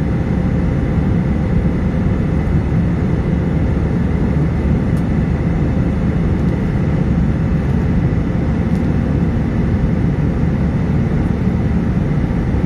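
Steady cabin noise of an airliner climbing after takeoff: engine and airflow noise, mostly a low rumble, with a faint steady whine above it.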